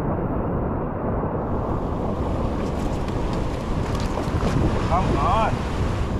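Wind buffeting the microphone over the steady wash of ocean surf, with a brief chirp about five seconds in.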